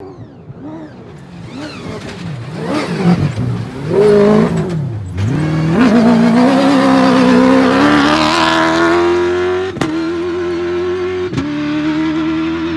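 Toyota Hilux cross-country rally truck approaching at speed, its engine note swinging up and down as it shifts and brakes. It then passes close and accelerates hard away, the engine pitch climbing steadily.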